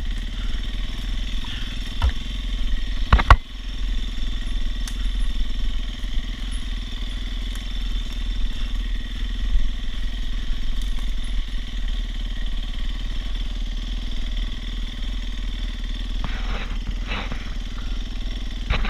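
Dirt bike engine running steadily while riding a woodland trail, with a sharp knock about three seconds in.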